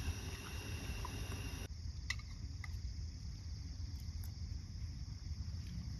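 Evening forest ambience: a steady chirring of crickets and other insects over a continuous low rumble. Not quite two seconds in, the insect sound drops away abruptly, and a few faint clicks follow.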